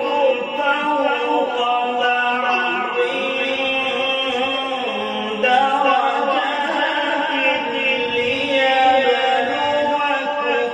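A man reciting the Quran in melodic qirat style through stage microphones, holding long ornamented notes, with short breaths between phrases about three and five seconds in.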